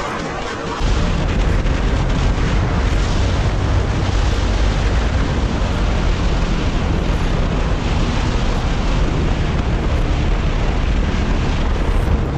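Motorcycle under way at speed: heavy wind rumbling on the microphone over the running engine. About a second in the rumble steps up louder and stays there.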